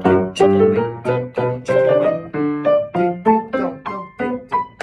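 Acoustic piano played by a young student: a phrase of short, separate notes, about four a second. It is the passage with the quaver, quaver, two semiquavers, quaver rhythm she has been practising.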